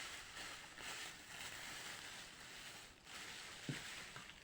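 Faint rustling of product packaging being handled, in slow swells, with a single soft knock near the end.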